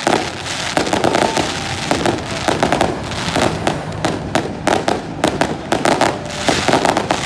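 Fireworks going off in a rapid, continuous string of sharp bangs and crackles, many each second without a pause.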